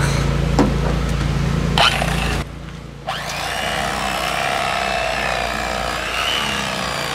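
Electric fillet knife running and sawing into a bowfin behind the head, a steady buzzing cut from about three seconds in. Before that, a steady low hum with two short knocks, which cuts off abruptly about two and a half seconds in.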